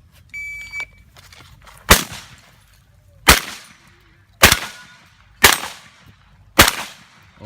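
An electronic shot timer's start beep, followed about a second later by five shotgun shots just over a second apart, each sharp and loud with a short echo.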